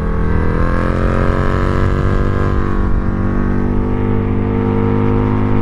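Husqvarna Nuda 900's parallel-twin engine running through its stock exhaust at low, steady revs, its pitch rising slightly in the first second.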